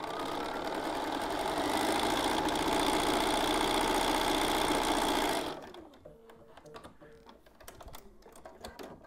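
Bernina 570 QE sewing machine stitching a seam, running steadily and picking up speed slightly about a second and a half in, then stopping abruptly a little past halfway. Faint clicks and rustles follow as the fabric and paper are handled.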